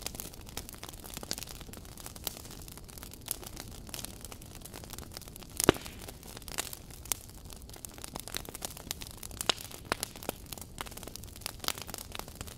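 A fire crackling: irregular pops and snaps over a low steady hiss, with one louder pop about six seconds in.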